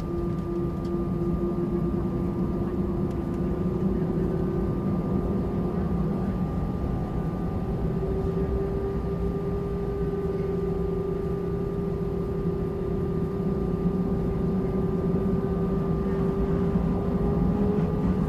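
Airbus A320-200's jet engines running steadily with a low rumble and a constant hum, its pitch edging up slightly about a third of the way in.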